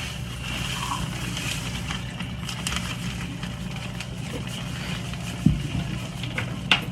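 A steady low mechanical hum, with two sharp knocks about five and a half seconds in and again near the end.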